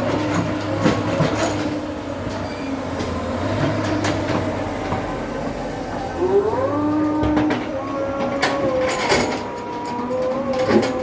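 JCB 3DX backhoe loader's engine and hydraulics running under load, with a steady whine whose pitch rises about six seconds in, and occasional knocks.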